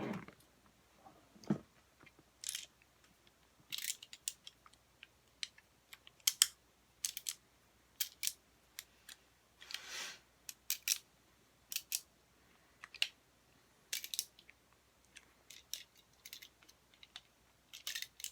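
Irregular sharp plastic clicks and clacks from a 3D-printed Tic Tac gun being handled and worked, with a short soft rustle about halfway through.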